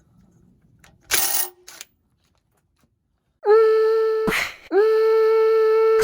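A short clatter about a second in, then a power tool's motor spinning up and whirring at a steady whine in two runs, each cutting off sharply.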